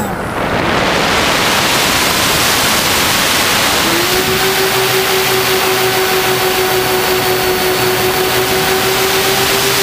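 Wind rushing over the onboard camera of a radio-controlled plane while its motor is throttled back. About four seconds in, the motor's whine comes back in and holds steady, rising slightly near the end.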